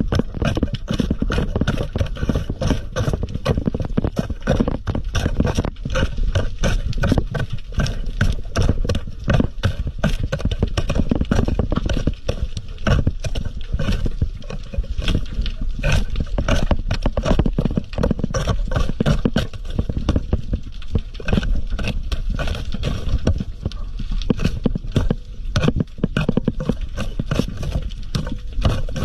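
Underwater working noise: a dense, irregular run of clicks and knocks over a low rumble, as a diver's hooked tool and gloved hands scrape sea urchins off rock and drop them into a mesh bag.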